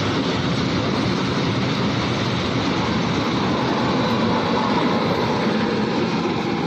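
A train running on the track, a steady, even noise of wheels and carriages.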